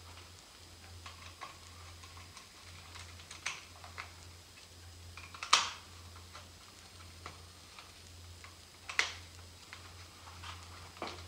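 Scattered small clicks and taps of a screwdriver working against the plastic and metal parts at the carburetor of a RedMax edger engine, with two sharper clicks about halfway and three-quarters of the way through.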